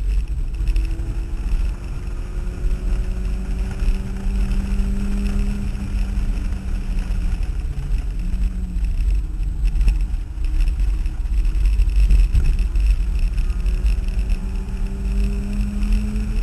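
Turbocharged Mazda Miata's four-cylinder engine heard from inside the cabin, pulling with its pitch climbing slowly, dipping briefly about eight seconds in, then climbing again. A heavy low rumble runs under it.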